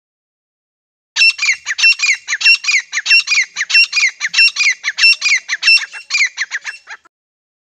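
Grey francolin calling: a rapid, loud run of high-pitched repeated notes, about three a second, starting about a second in and stopping abruptly near the end.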